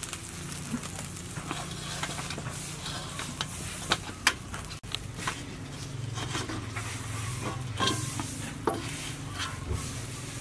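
Fish grilling over charcoal in a wire grill basket: a steady sizzle with scattered sharp crackles and pops as the fat drips onto the coals.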